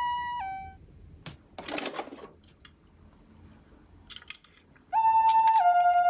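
Toy ambulance's electronic two-tone 'pee-po' siren, alternating between a high and a low note, cutting off under a second in. A short burst of noise and a few clicks follow, then a louder two-tone siren starts again about five seconds in.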